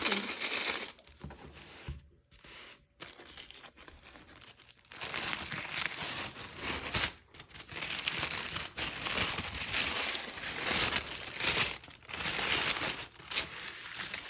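Paper wrapping around a book being crumpled and torn open by hand: a few light rustles at first, then steady crinkling and tearing from about five seconds in.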